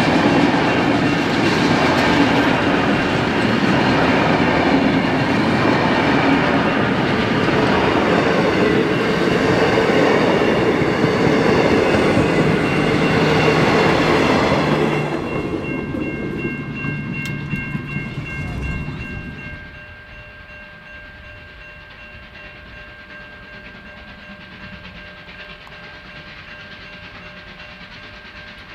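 Heritage passenger carriages rolling past, their wheels clattering over the rail joints. The sound fades as the guard's van goes by about halfway through, then falls sharply. What remains is a much quieter background with a few faint, thin steady tones.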